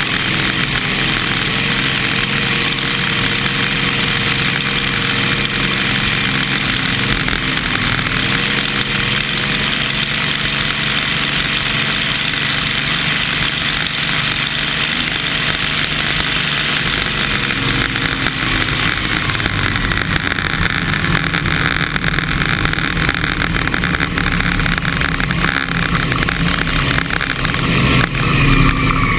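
Vintage Oh Boy! Oberto hydroplane's engine running steadily at speed, heard from on board over a rushing hiss of water spray.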